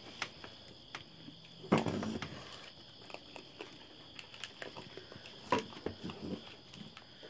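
Raccoons chewing cat food from a bowl: scattered small clicks and crunches, with two louder knocks about two seconds in and again past five seconds. A steady high insect trill runs underneath.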